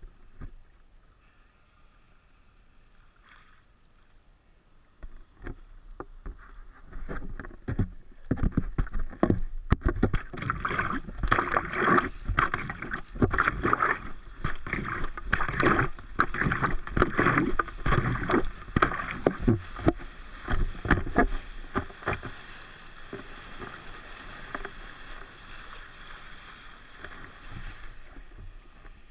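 Water splashing and sloshing against a stand-up paddleboard, close up, in irregular bursts as it is paddled, starting about five seconds in. Near the end it settles into a steadier rush of water as the board moves through whitewater.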